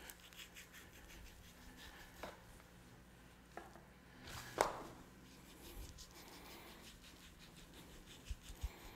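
Faint scraping and slicing of a knife through brisket fat against a plastic cutting board, with one sharper knock about four and a half seconds in.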